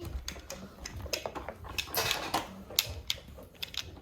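Irregular clicking and clattering of plastic toy cars and trucks being handled and knocked together, several sharp clicks a second.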